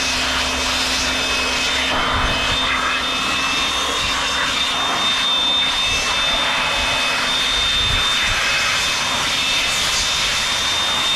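Handheld electric air blower running steadily, a rush of air with a high whine, blowing water off a freshly washed motorcycle.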